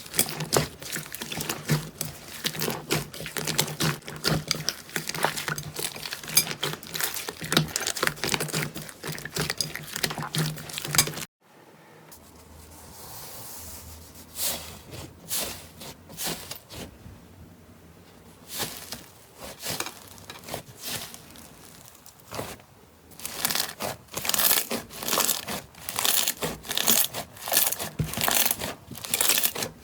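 Slime being squished and stretched by hand, with dense wet crackling and popping. It stops abruptly about eleven seconds in, gives way to quieter, sparser squelches, and the dense crackling picks up again near the end.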